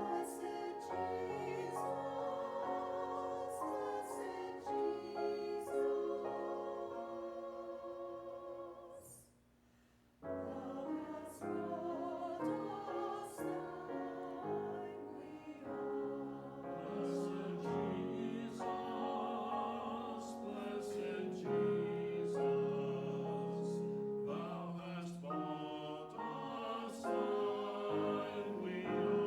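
Church choir singing, breaking off briefly about nine seconds in and then starting again.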